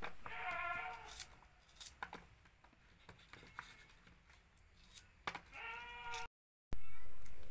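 A farm animal bleats twice, once near the start and once about five and a half seconds in. Between the bleats come light, irregular clicks of a small knife slicing shallots. Near the end the sound drops out briefly, then comes back as a louder wash of noise that fades.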